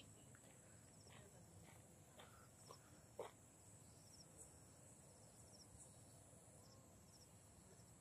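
Near silence: faint outdoor ambience with a thin, steady high-pitched tone and a few faint short distant sounds about one to three seconds in.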